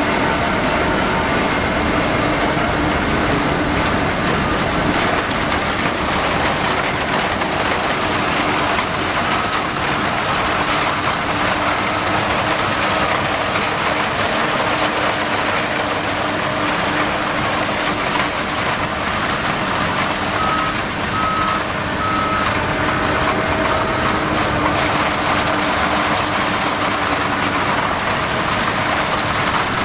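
John Deere X9 1100 combine harvesting corn: a steady, loud run of engine and machinery noise. A few short high-pitched electronic beeps sound about a third of the way in and again about two-thirds in.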